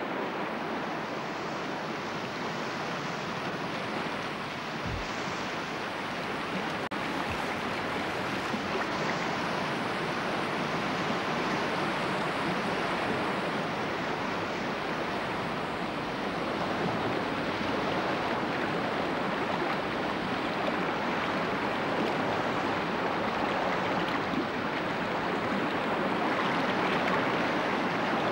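Whitewater rapids of the Fraser River: a steady rush of churning, breaking water, growing slightly louder toward the end.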